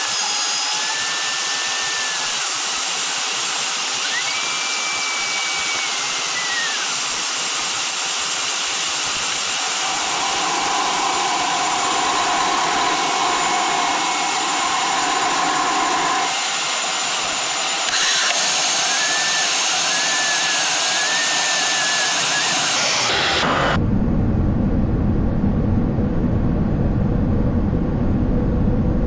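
Steady airflow hiss on an Embraer 190 flight deck in flight, with faint whistling tones drifting in pitch. About 23 seconds in it changes suddenly to a low rumble with the hiss gone.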